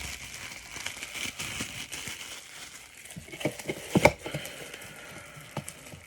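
Plastic packaging crinkling as it is handled, then a few sharp knocks and clicks about four seconds in, the loudest near four seconds.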